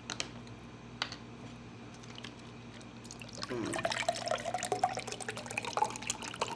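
Close-miked wet mouth sounds of eating: a couple of single clicks, then from about halfway a dense run of small moist crackles and smacks as food is chewed.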